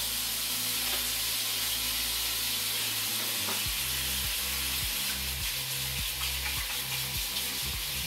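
Water running steadily from a kitchen faucet while hands are washed under it.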